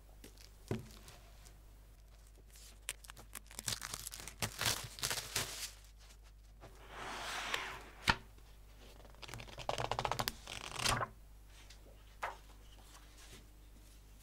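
Sheets of A4 120 gsm paper being handled, rustling and sliding against each other in repeated bursts, with a sharp click about eight seconds in.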